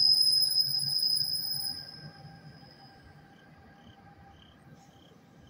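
NJ Transit electric locomotive pushing its train away from the platform, a high steady electric whine over a low rumble that fades over the first three seconds as the train recedes.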